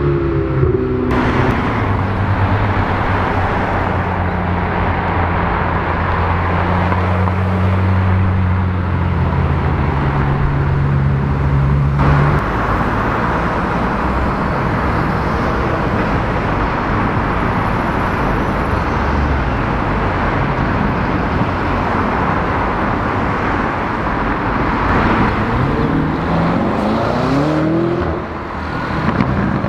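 Supercar engines in street traffic. A Ferrari's engine holds a steady low note for about the first twelve seconds, then there is general road noise, and near the end a Lamborghini Urus's engine revs up as it accelerates away.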